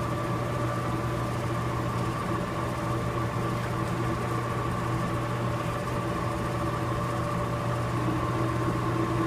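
Electric meat grinder motor running steadily with a constant hum, driving the auger to push meat through a fine die. The meat is clogging and creaming instead of being cut cleanly, which she puts down to a probably dull blade.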